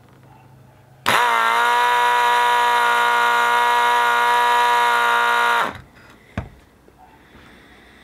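Electric compressor of an old FIAMM air horn spinning up, running for about four and a half seconds with a loud, steady buzzing whine, then winding down. The horn's trumpet gives no note of its own, which the owner puts down to the 10.8-volt tool battery not giving enough power. A single click follows shortly after it stops.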